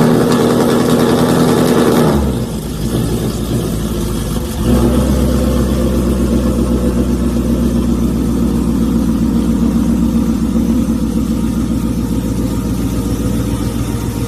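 Ford Mustang GT V8 with a loud exhaust running at raised revs, which drop back about two seconds in. It then settles into a steady, loud, deep idle from about five seconds on.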